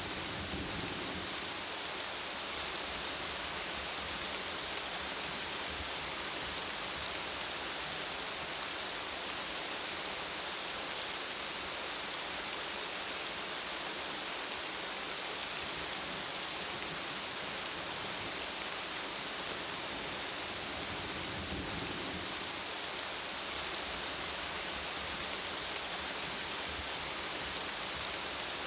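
Steady rain, a dense even hiss, with a low rumble swelling briefly about a second in and again around twenty-one seconds in.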